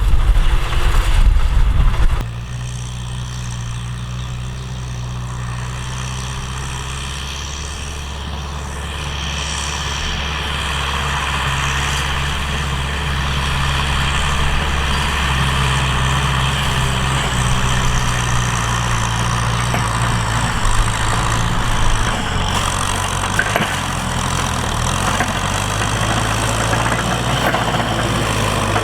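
Tractor engine running steadily under way. A louder low rumble for about the first two seconds gives way abruptly to an even engine note that grows slightly louder from about eight seconds in.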